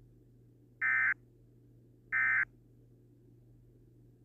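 Emergency Alert System SAME digital data tones: two short, identical buzzing bursts about a second and a half apart. They are the last two of the three End-of-Message (NNNN) bursts that close an EAS alert.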